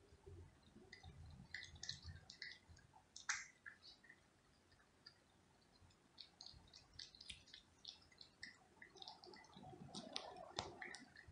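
Cat chewing chunks of wet food from a plastic plate: faint, irregular wet smacks and small clicks, with a few sharper clicks about three seconds in and near the end.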